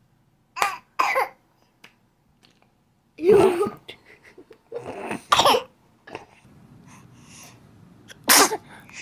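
A baby sneezing in several short, sudden bursts, the loudest about three seconds in and again near the end.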